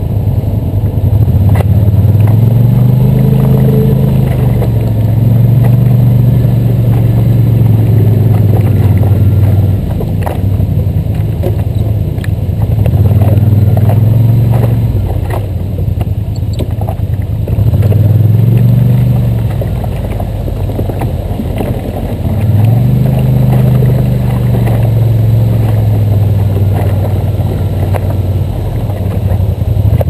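ATV engine running under load, its revs climbing, holding and easing off about four times as the quad works along a rough trail and into a creek, with scattered knocks.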